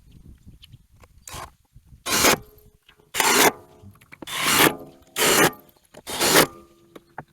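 A hand tool rasping across wood in five strokes, about a second apart, with a fainter stroke just before them.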